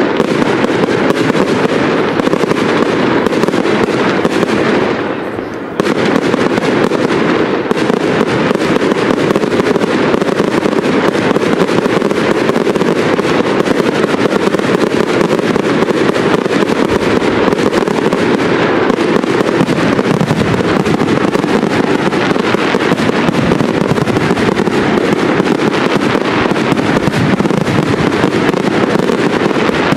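Professional fireworks display: many aerial shells bursting in a dense, near-continuous barrage of bangs and crackle, easing briefly about five seconds in before resuming.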